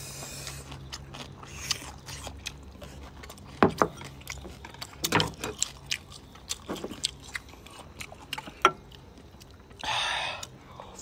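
People eating and chewing, with mouth sounds and scattered sharp clicks, and a short breathy rush near the end.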